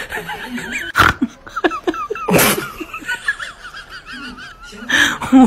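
Laughter, wavering and continuous, broken by sudden loud noisy bursts about a second in, around two and a half seconds in, and near the end.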